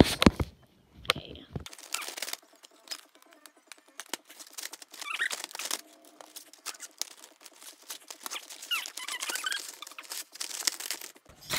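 Hands working at a cardboard-and-plastic blister pack of markers to open it: scattered small clicks, crinkles and scratches of the packaging being handled and pried at.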